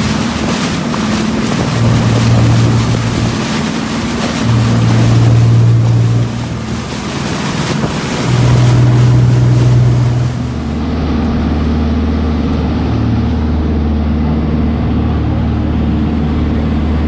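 Fishing charter boat under way at speed: a steady engine drone with the rush and splash of its wake, and wind on the microphone. About ten seconds in, the water hiss drops off and the low engine drone carries on steadily.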